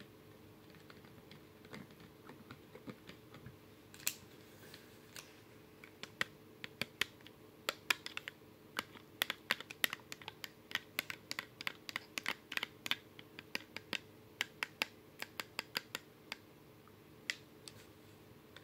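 A spoon clicking and scraping against a clear plastic cup while stirring thick green slime: a rapid, irregular run of sharp clicks, several a second, starting about four seconds in and thinning out near the end.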